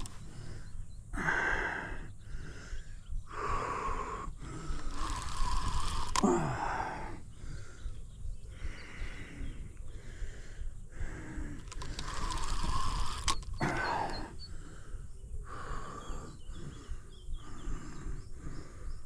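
An angler breathing hard in gasping breaths, in and out about once a second, from the effort of playing a hooked carp on rod and reel. There is a low rumble on the microphone underneath.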